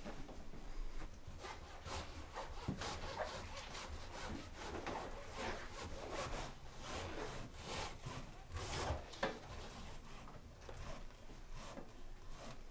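Irregular rubbing and scraping strokes, one after another, with no steady rhythm.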